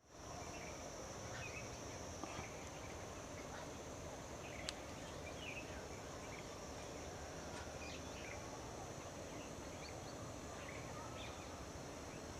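Small birds chirping in short scattered calls over a steady high insect drone, with one sharp click a little before the middle.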